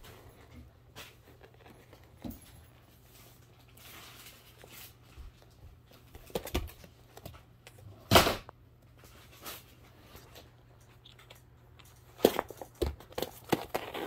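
A Sphynx kitten playing with a wand toy's fabric string on foam floor mats: scattered soft knocks, scuffs and rustles, with one louder thump about eight seconds in and a flurry of knocks near the end.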